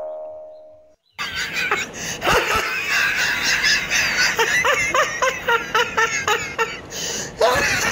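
The tail of a boing sound effect dies away in the first second. Then laughter follows: a long run of quick giggles.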